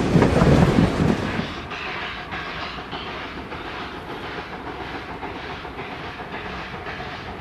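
NRZ 14A-class Beyer-Garratt steam locomotive and its train running. The sound is loud and rushing for about the first second and a half, then quieter with a regular beat of about three a second.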